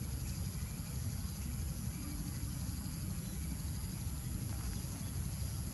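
Uneven low rumble of wind buffeting the microphone, over a faint steady outdoor hiss; nothing distinct stands out.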